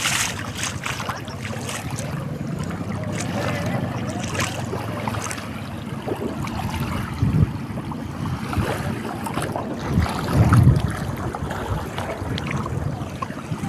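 Floodwater rushing over a submerged road: a steady wash of water noise, with two louder low bumps about seven and ten seconds in.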